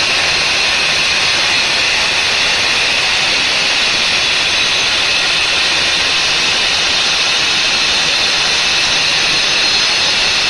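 Electric five-blade wall cutting machine (wall chaser) running steadily: a loud, even, hissing machine noise that stays unchanged.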